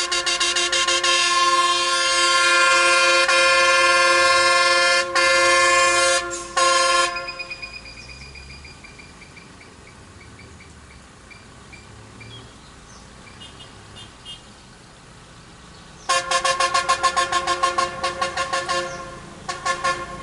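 Vehicle horn blaring in one long blast of about seven seconds with two brief breaks. After a lull, a second, stuttering blast of about three seconds follows, then a couple of short toots near the end.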